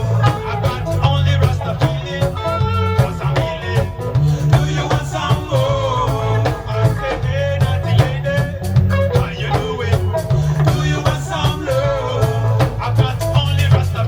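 Reggae band playing a lovers rock song: a heavy, steady bass line under a regular chopped rhythm, with a wavering melodic line carried over it.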